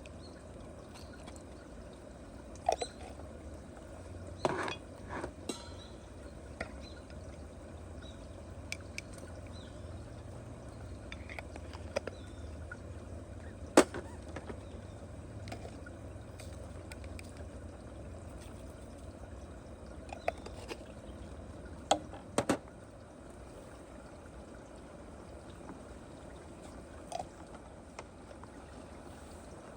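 Cooking sounds: a steady watery trickle or bubbling with scattered sharp clinks and knocks, the loudest a single knock about 14 s in and a quick pair about 22 s in.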